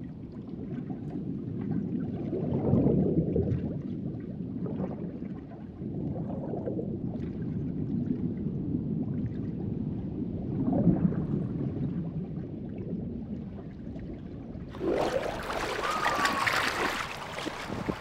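Muffled underwater sound of moving water, low and swelling in waves. About fifteen seconds in it switches suddenly to open-air sea noise of waves and wind on the microphone, with a brief high tone.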